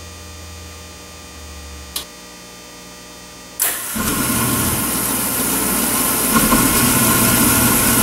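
Converted Beckett oil burner on a waste oil furnace firing up: after a low hum and a single click about two seconds in, the burner comes on suddenly about three and a half seconds in, and its combustion then runs steadily and loudly.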